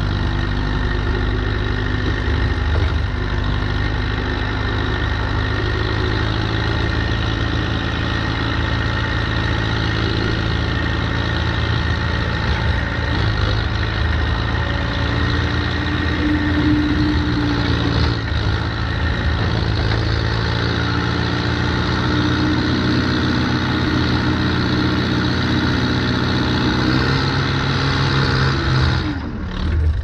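Diesel engine of a 1979 Allis-Chalmers 715B backhoe running steadily under load while the machine drives forward, pushing snow with its front loader bucket. Near the end the engine note dips briefly and then picks up again.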